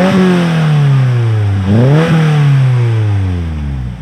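A 2022 Subaru WRX's turbocharged flat-four engine is revved twice, about two seconds apart. Each time the revs climb sharply, then fall away slowly.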